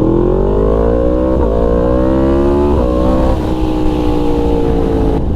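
Yamaha MT-series crossplane motorcycle engine accelerating hard, its pitch climbing through two upshifts about one and a half and three seconds in. It then eases off, and the note falls slowly.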